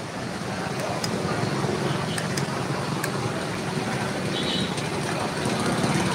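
Street traffic: motorbike engines running as they pass close by, over a steady hum of road traffic, growing a little louder toward the end.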